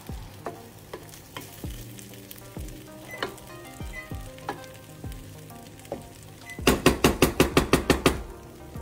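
Wooden spoon stirring basmati rice as it sizzles in oil and meat juices in a stainless steel pot, the rice being toasted before water goes in. The spoon knocks against the pot every half second or so, then near the end comes a quick run of about a dozen loud knocks, about eight a second.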